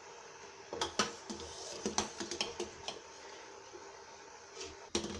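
A steel ladle clinking and scraping against a stainless steel pan as milk is stirred while it boils down for rabri. The sound is a string of light, irregular clicks over a faint steady hiss.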